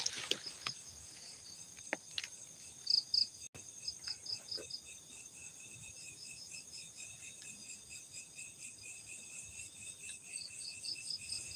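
Insects chirping in short, repeated trains of high-pitched pulses, with a few faint clicks and rustles in the first half.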